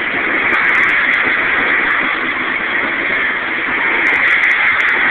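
Freight train of tank cars rolling past close by: a steady, loud rush of steel wheels on the rails, with a few faint clicks about half a second in and again near the end.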